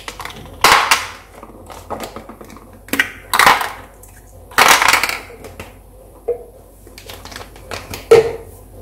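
Plastic baby bottle parts knocking and rattling as nipples and screw collars are taken off the bottles and dropped into a plastic tub: four loud short clatters a few seconds apart, with lighter clicks between.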